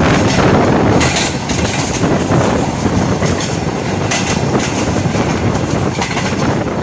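Karakoram Express passenger coaches running at speed, heard from aboard: wheels clattering over rail joints with a few sharp clicks amid steady rushing noise.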